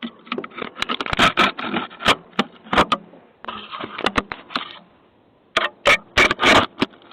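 Irregular knocks, clatters and scrapes heard through a Ring doorbell camera's microphone. They come in two clusters with a short lull between them.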